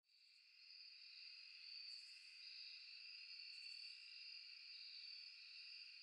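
Faint chorus of crickets trilling steadily, fading in over the first second.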